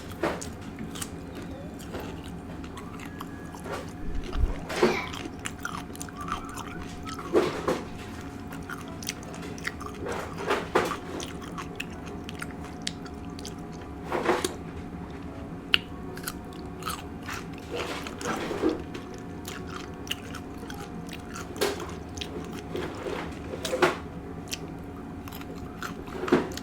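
A person chewing and biting food close to the microphone, with wet mouth sounds. A louder bite or crunch comes every few seconds.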